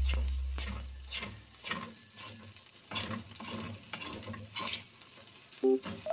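Metal spatula stirring and scraping fried rice around an aluminium wok, in irregular strokes about two or three a second, over a faint frying sizzle.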